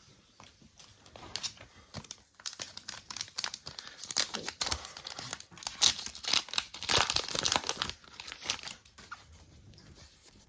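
A trading-card booster pack wrapper being torn open and crinkled: a run of crackles that is loudest in the middle and thins out near the end.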